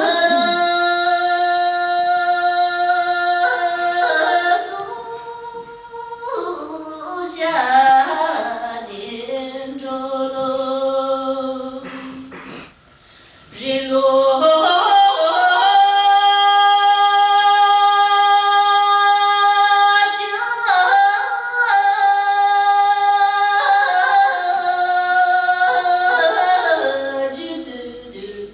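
A woman singing solo into a microphone, with no accompaniment, holding long steady notes. She breaks off briefly about thirteen seconds in, then holds another long note.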